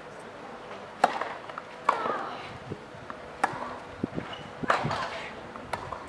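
Tennis rally on a clay court: a ball struck back and forth by rackets, five sharp hits roughly a second apart, with fainter knocks between them.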